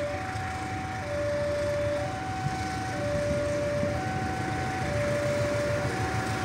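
Electronic two-tone warning alarm, a railway level-crossing alarm, sounding a higher and a lower tone in turn, each held about a second, as a freight train approaches. A low rumble runs underneath.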